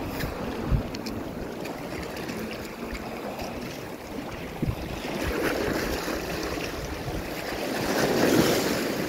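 Small waves washing and fizzing over a rocky reef flat, the surf swelling about eight seconds in, with some wind on the microphone. Two short low thumps, one just under a second in and one about four and a half seconds in.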